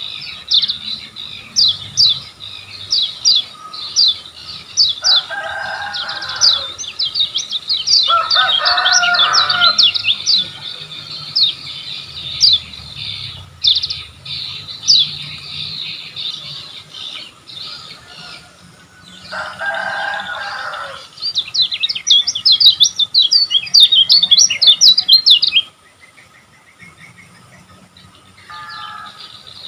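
Kecial kuning white-eye singing: rapid runs of high, quickly falling notes strung into long chattering phrases, dropping away near the end. Three short, lower, rougher bursts sound under the song partway through.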